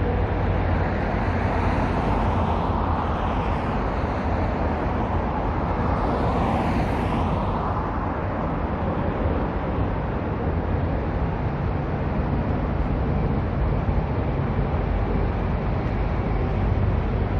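Road traffic: a steady rumble of cars, with vehicles passing, the clearest one about six to seven seconds in.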